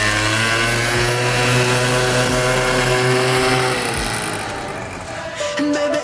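Peugeot Speedfight 2 scooter's two-stroke engine running at a steady pitch while riding, then fading away about four seconds in.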